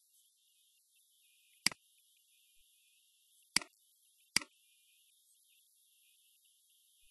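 Three sharp computer mouse clicks, about two seconds apart and then one close after another, each a press followed by a quieter release, over a faint steady hiss.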